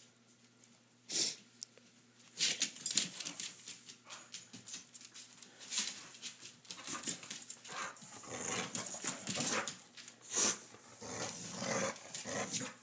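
A dog growling and shaking a plush toy on a tile floor, heard as a run of short, irregular scuffling noises from about two seconds in, after one brief noise about a second in.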